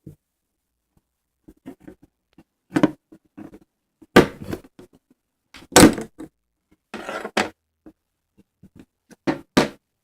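Slime being squeezed and played with by hand, making irregular wet squelches and pops. The loudest come about four and six seconds in, and a pair comes near the end.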